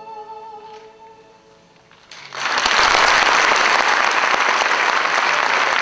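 The last held, wavering note of the song fades away. After a brief hush, an audience breaks into loud, steady applause about two seconds in.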